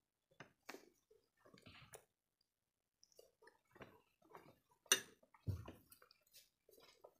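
Faint eating sounds: chewing and fingers mixing rice and curry on plates, in short scattered clicks and squelches. About five seconds in there is a sharper knock, followed by a low thump.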